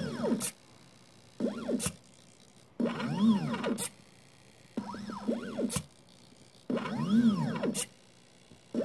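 Stepper motors of a 3D-printed mini CNC pen plotter whining through about five short moves, each whine rising and then falling in pitch and ending in a click, with brief pauses between moves.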